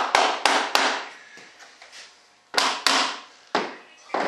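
Hammer striking a moulded part: four quick sharp taps in the first second, a pause, then a few more spaced taps from about two and a half seconds in, each with a brief ringing decay.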